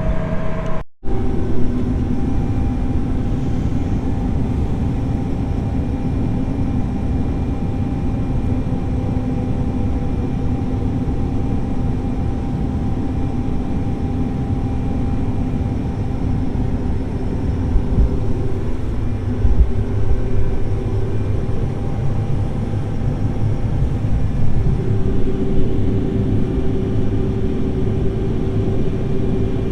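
Large diesel farm machine running steadily, its engine and drive hum constant, with a brief dropout about a second in and a new steady hum tone coming in about two-thirds of the way through.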